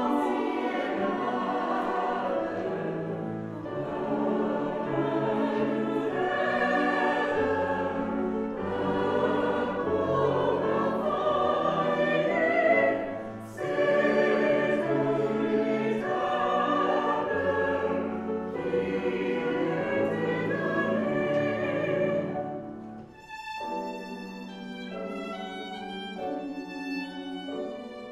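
Mixed choir singing a traditional French-Canadian song in long phrases. About 23 seconds in the singing stops and a solo violin takes over with a bright melody.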